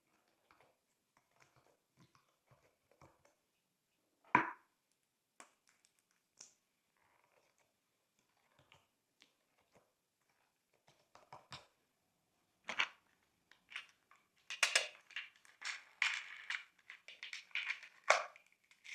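Glossy slime being mixed and pressed, making sticky crackles and small bubble pops. The crackles are sparse at first, with one louder squish about four seconds in, and turn into a dense run of crackling and popping in the last third.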